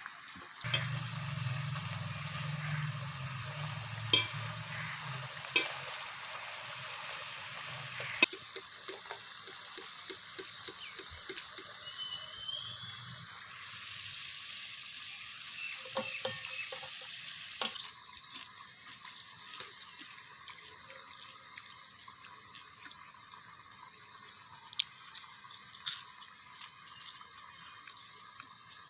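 Potatoes frying in hot oil with a steady sizzle, and a cooking utensil clicking against the pan, in a quick run about a third of the way in and a few more times later. A low hum is heard during the first several seconds.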